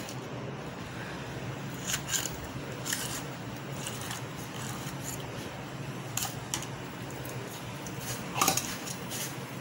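Stainless steel plate and bowl clinking and knocking as set rice-flour halwa is turned out of its bowl onto the plate: a few scattered clinks, the loudest cluster near the end, over a steady low hum.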